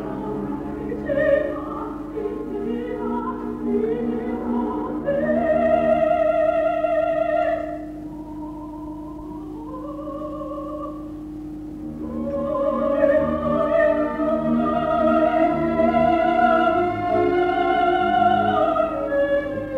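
A soprano singing an operatic aria with orchestral accompaniment, in a live stage performance recorded on tape. She holds a long high note with wide vibrato, sings a quieter, softer passage, then rises into a long, loud sustained phrase near the end.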